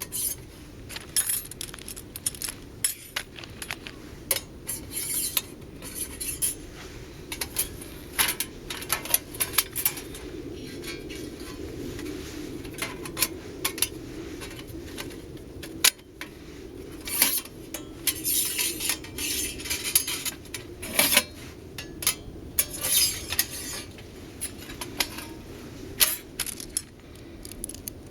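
Thin stainless steel stove panels clinking, tapping and scraping as they are handled and slotted together, in irregular bursts of sharp metallic clicks over a steady low background hum.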